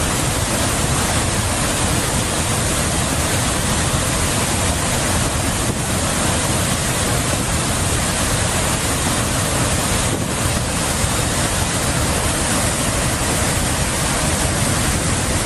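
Steady, loud rush of a flood-swollen river pouring over a waterfall.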